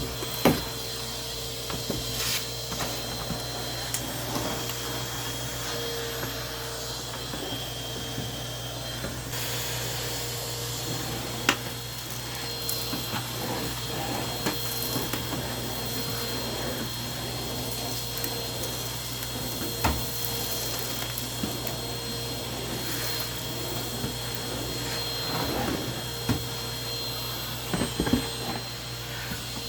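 Numatic Hetty tub vacuum cleaner running steadily, with scattered sharp knocks and clicks as the nozzle bumps and is pushed around.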